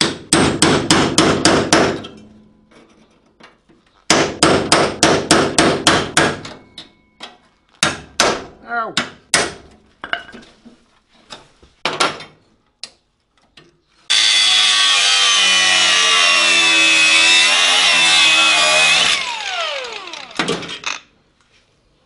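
Hammer driving a chisel through rusty car sheet steel: two runs of rapid blows, then scattered single strikes. About halfway, a power tool runs loudly with a whine for about five seconds, then spins down.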